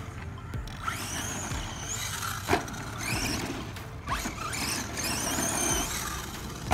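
1/10-scale Pro-Line PRO-MT 4x4 radio-control monster truck driving on dirt: its electric motor whines up and down in several throttle bursts over tyre noise. There is a thud about two and a half seconds in, and a sharp slap right at the end as it lands a jump, the chassis slapping the ground on the landing.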